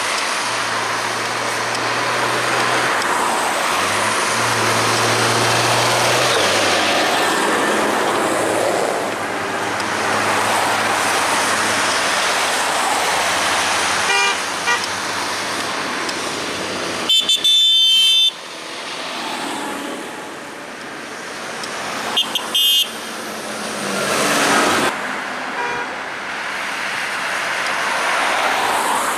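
Tractors driving past one after another, diesel engines running with tyre noise on the road. Vehicle horns toot briefly about halfway through, sound one longer blast a few seconds later, then give a couple of short toots.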